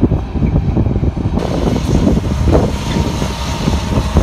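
Class 70 freight locomotive's V16 diesel engine running as it hauls a train of tank wagons past, with wind buffeting the microphone.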